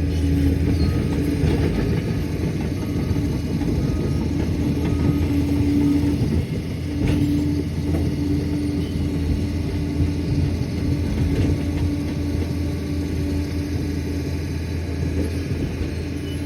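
Liebherr 746 crawler dozer's diesel engine running steadily under load, a deep drone with a held hum, with a single knock about halfway through.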